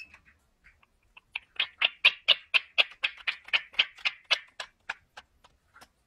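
An Indian ringneck parakeet making a rapid run of short, sharp, evenly spaced sounds, about four a second, which build up, peak and then fade away.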